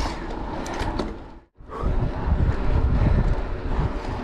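A mountain bike rolling fast on asphalt: wind buffeting the microphone over tyre hum and light rattling of the bike. The sound drops out briefly about one and a half seconds in, then carries on.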